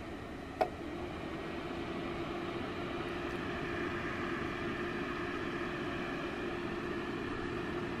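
NEXGADGET personal space heater running, its fan giving a steady whoosh. About half a second in there is a short click, after which a steady hum joins the fan noise.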